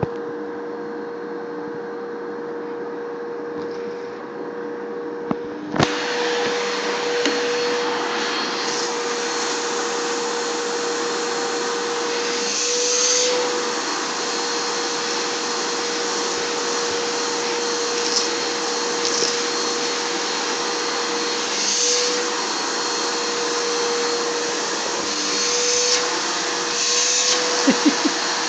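Vacuum cleaner running with a steady motor hum and suction hiss. About six seconds in there is a click and the hiss gets louder and stays that way. A few light knocks come near the end.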